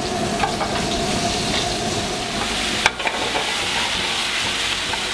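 Meat sizzling on a hot char-grill. About three seconds in there is a sharp click, then a steady, stronger hiss as white wine hits a hot pan to deglaze it and the pan flares up.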